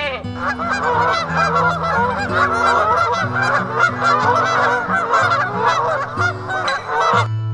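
Domestic geese honking: many short calls overlapping in a steady chatter, which stops abruptly near the end.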